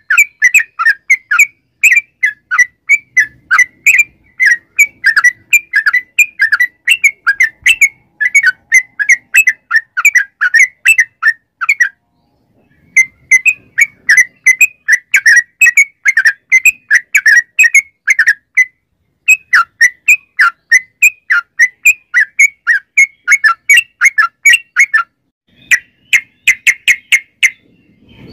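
Caged yellow-vented bulbul (trucukan) singing loudly: a rapid chattering run of short, clear notes, several a second, broken by brief pauses about 12, 18 and 25 seconds in.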